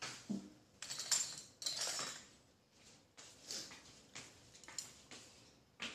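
Utensils clinking and clattering against a plate: a run of irregular short clicks and knocks as a meal is dished up and eating begins.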